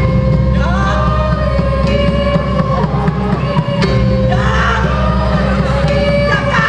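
Theatre music with a steady held tone under it, and a voice singing in gliding, wavering phrases, once shortly after the start and again from about four seconds in.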